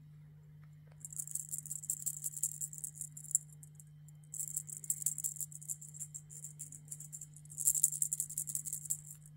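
A rattling cat toy shaken in three bursts of dense, bright rattling, the last the loudest.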